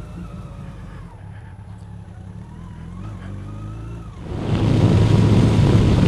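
Motorcycle engine running steadily at low speed. About four seconds in, a loud rush of wind noise on the microphone comes in with a stronger engine drone as the bike picks up speed.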